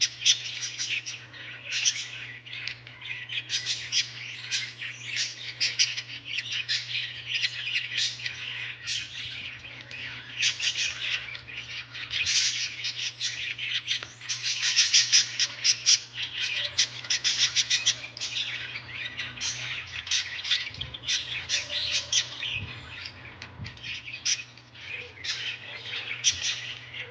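Birds chirping and squawking in a rapid, continuous chatter, over a steady low hum.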